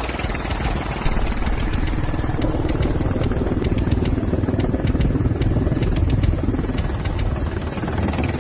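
Helicopter engine and rotor noise heard from inside the cabin: a steady, dense low drone with a scatter of faint ticks through the middle.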